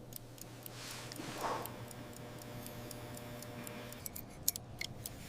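Faint ticking and small metallic clicks, as from a mechanical watch movement, with a soft whoosh about a second in and a few sharper clicks near the end.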